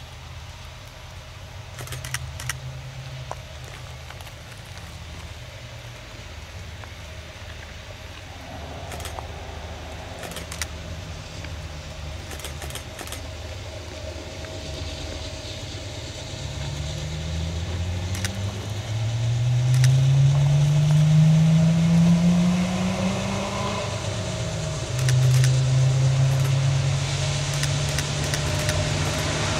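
Diesel locomotive engines on an approaching train, growing louder. The low engine note climbs in pitch over several seconds about halfway through, then settles into a steady, louder drone.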